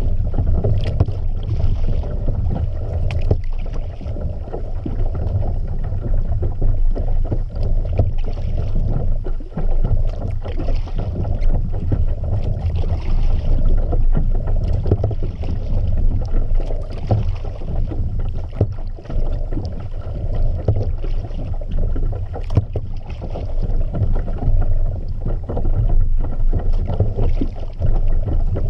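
Water splashing and lapping against a kayak under way, over a steady low rumble of wind on the microphone, with frequent small knocks.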